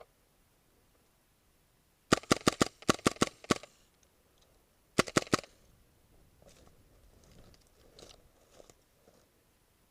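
Airsoft gun firing: a quick string of about nine shots, then a short burst of about four more a second and a half later.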